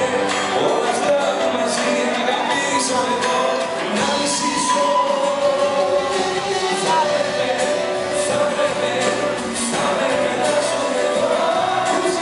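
Live band music: a man sings into a microphone over keyboards and percussion, heard in a large hall.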